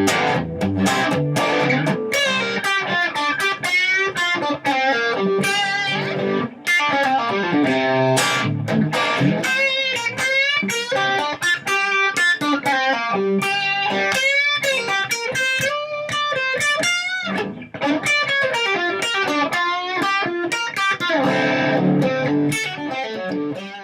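Electric guitar playing quick single-note lead lines with some chords, dying away at the end.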